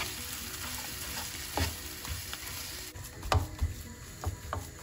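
A spoon stirring and scraping a mashed potato mixture in a nonstick frying pan over the heat, with a steady gentle sizzle. The spoon knocks against the pan once about a second and a half in, and several times near the end.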